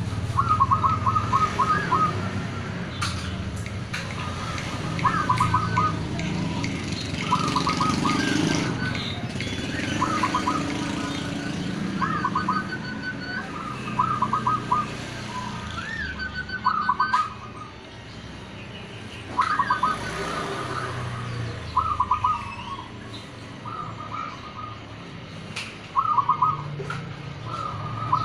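Zebra doves (perkutut) cooing in song: a repeated phrase of a higher opening note followed by a quick run of short, even coos, coming every two or three seconds, over a low background hum.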